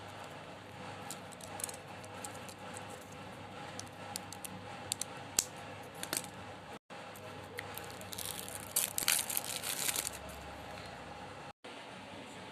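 School supplies and their plastic packaging being handled: scattered small clicks and rustles, with a denser burst of crinkling about eight to ten seconds in, over a steady faint hum. The sound drops out briefly twice.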